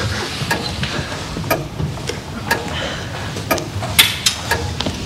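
Sharp, evenly spaced ticking, about two ticks a second, over a low steady hum.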